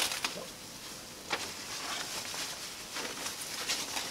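Plastic protective wrapping being pulled off a robot, rustling and crinkling, with a few sharper crackles.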